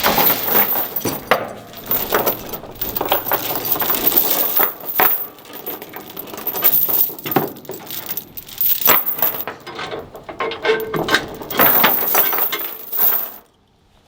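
Tie-down chain clinking and rattling with irregular metallic clanks as it is unhooked from the tractor on the trailer. It stops abruptly near the end.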